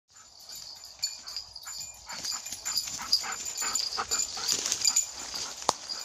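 An Airedale terrier search dog working through forest undergrowth: irregular rustling of leaf litter and brush under its and the handler's steps, with the dog's breathing, and a sharp snap near the end.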